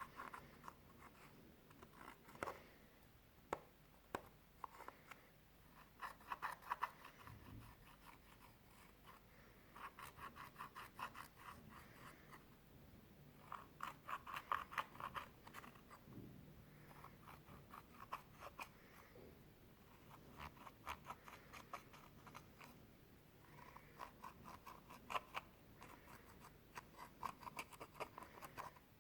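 Clear slime being squeezed and kneaded by hand, crackling with quick runs of small popping clicks in bursts of about a second, every couple of seconds.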